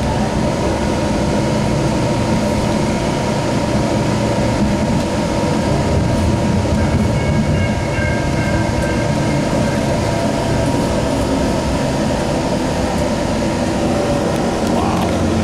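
Steady running noise of a Sound Transit Link light rail car, heard from inside the passenger car, with a faint high whine about seven seconds in.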